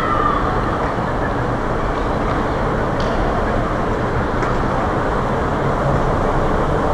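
Walt Disney World monorail train running along the track through the resort's concourse: a steady rumble with a low hum that builds just before and fades about a second after.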